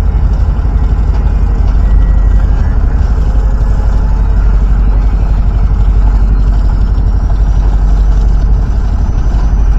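Boat engine idling, a steady low rumble.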